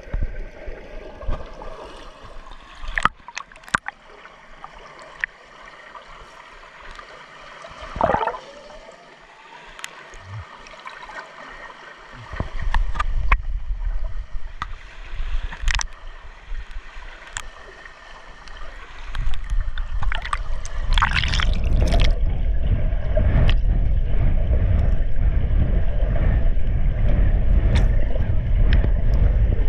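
Swimming-pool water heard by a camera at and below the surface: gurgling and sloshing with scattered sharp clicks and splashes, then about two-thirds of the way through a steady, loud, low rumble of churning water as the camera moves quickly underwater.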